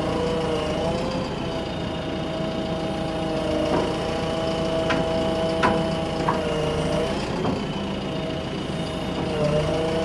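JCB backhoe loader's diesel engine running steadily, its pitch dipping and recovering a few times as the arm lifts and swings a road roller drum hung on a chain from the bucket. A few short knocks come in the middle.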